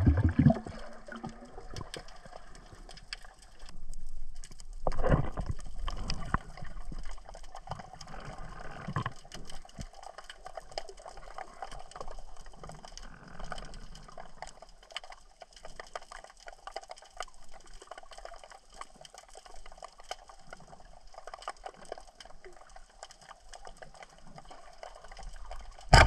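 Underwater sound picked up by a submerged camera: water noise with a dense crackle of small clicks, and louder swishing surges about four, five and nine seconds in.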